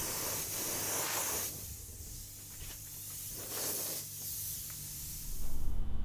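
Iwata HP-CS Eclipse airbrush spraying thinned black water-based paint: a hiss of air that rises and falls in strength several times as the trigger is worked, then cuts off suddenly near the end.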